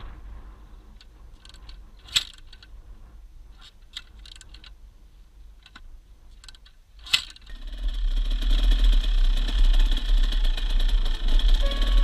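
A dirt bike's kickstarter kicked twice, about five seconds apart. Each kick is a single sharp clack, and the engine does not catch. After that comes a loud, steady rushing noise with a deep rumble.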